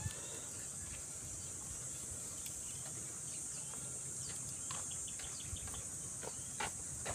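Steady high-pitched drone of insects, with a few scattered light clicks and ticks, mostly in the second half.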